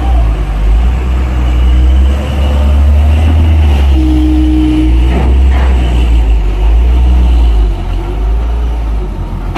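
Heavy diesel truck engine running loud and close at low speed, its deep rumble easing off a little near the end. A brief steady tone sounds about four seconds in, lasting about a second.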